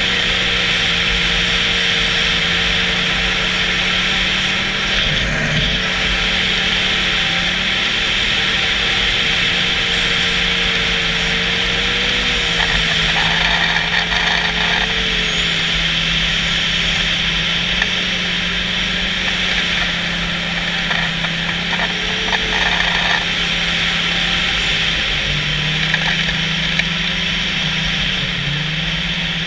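Snowmobile engine running steadily at trail-cruising speed, its pitch dipping slightly a few times, over a constant rushing noise.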